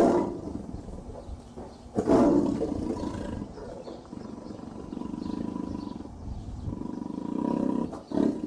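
Tiger roaring: a loud call at the start and another about two seconds in, then quieter, drawn-out calls.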